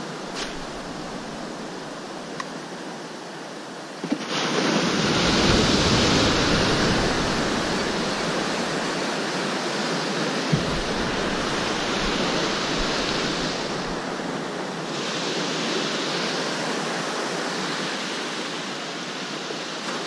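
Ocean surf rushing and washing, a steady wash of water that gets louder about four seconds in and then swells and ebbs slowly.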